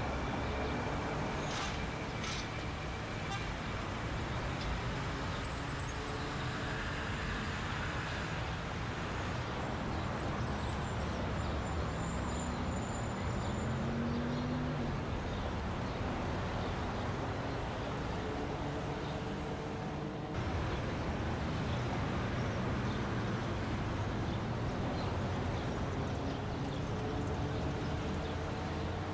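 Steady mechanical motor noise, an even hum with low droning tones that shift in pitch now and then, dipping briefly about twenty seconds in.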